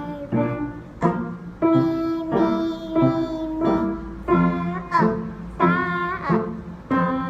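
Piano played at a slow, even beat in a lesson, about three notes every two seconds. A voice seems to sing along with the melody partway through.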